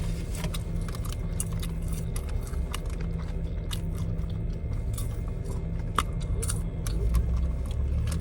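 Close-up eating sounds: chewing and biting food with short, irregular crunchy clicks, over a steady low hum.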